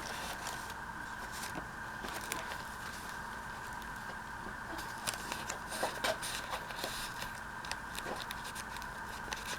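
Paper being handled: light rustling, scraping and small taps as paper pieces are moved and fitted into a journal, busiest a few seconds before the end. Under it runs a steady faint hum.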